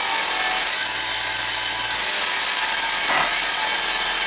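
Bench grinder running a new buffing wheel with a steel adjustable-spanner part pressed against it for polishing: a steady, even whirring rush.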